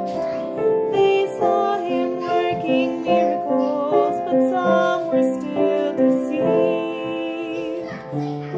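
A woman singing a gentle, lullaby-like children's song to piano accompaniment.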